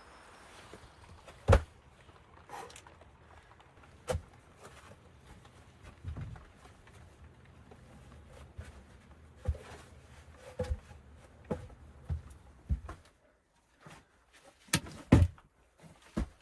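Irregular knocks and thuds of a shovel working soil and of a log being lifted and laid on a dirt floor, with boot steps. The loudest thumps come about a second and a half in and near the end.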